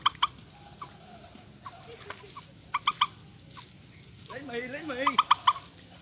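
Purple swamphens calling: three bursts of short, sharp notes in quick series, about two and a half seconds apart, with a lower wavering call just before the last burst.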